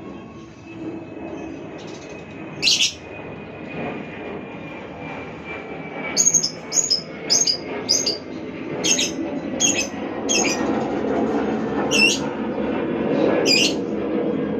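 Lovebird giving shrill chirps, a quick run of about six calls in the middle and a few single ones either side, over a steady rumbling noise that grows louder.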